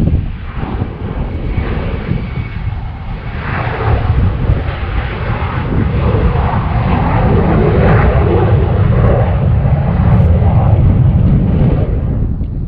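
Military jet engine noise, loud and growing from a few seconds in, strongest late on and falling away near the end as the jet passes.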